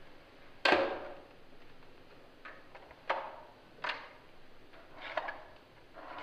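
A series of sharp knocks or percussive hits at irregular gaps, each dying away with a short ring. The first, under a second in, is the loudest; weaker ones follow around three, four and five seconds in.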